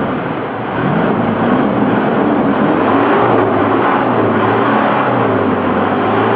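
A vehicle engine being revved up and down repeatedly as the throttle is pumped. This is a free-revving test to see whether the exhaust still belches smoke with a fuel-saver device fitted.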